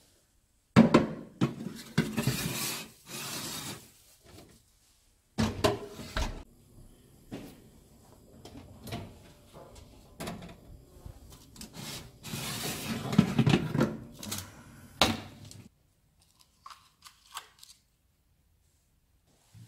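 Metal baking tray carrying a steel cake ring being handled into an oven: clattering knocks and metal scraping against the oven rails, in several spells, then only a few faint small sounds near the end.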